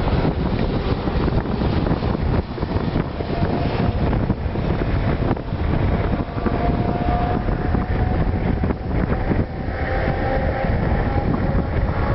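Wind buffeting the microphone in gusts, a loud rumbling noise that rises and falls unevenly.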